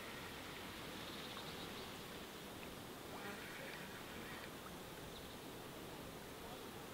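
Quiet outdoor ambience at a lake: a faint steady hiss, with a few soft ticks about three seconds in.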